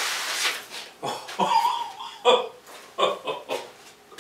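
A rag wiping and scuffing across a shop tabletop, with a short wavering squeak about a second and a half in and a few more scuffs after it.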